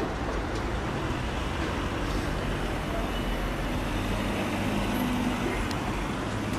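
Steady outdoor background noise: an even rushing hiss over a low rumble, with no distinct single event.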